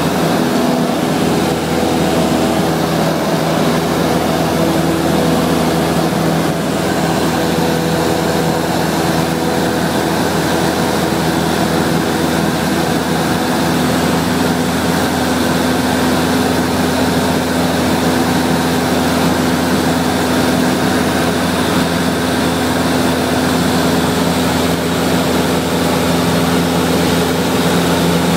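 Cessna 172SP's four-cylinder Lycoming engine and propeller droning steadily in flight, heard from inside the cabin as a loud, even hum with a few held low tones over a hiss of rushing air.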